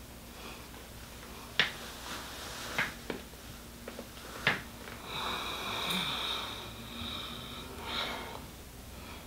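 A few sharp clicks, then a man's high, wheezy breath held for a couple of seconds, with a shorter breath after it.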